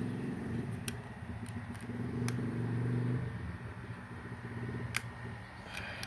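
An engine running steadily as a low drone, louder in the first half. A handful of sharp metallic clicks come from a flat-blade screwdriver working a screw in a PCP air rifle's steel receiver.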